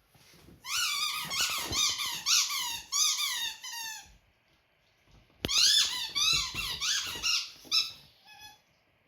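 A rubber squeaky toy being squeaked over and over in quick succession by a dog chewing it, about three squeaks a second. There are two runs of a few seconds each with a pause of about a second between them.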